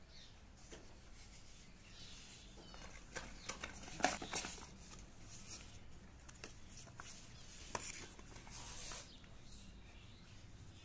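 Handling noise of unboxing: cardboard packaging and plastic parts rubbing and sliding under the hands, with scattered light taps and scrapes and a cluster of louder clicks about four seconds in.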